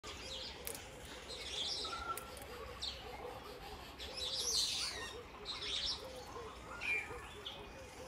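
Several birds chirping and whistling in short high calls, over a low cooing repeated two or three times a second.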